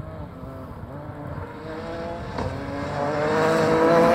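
Ford Fiesta R5 rally car's turbocharged four-cylinder engine approaching at speed, growing steadily louder, its note climbing and dropping back several times.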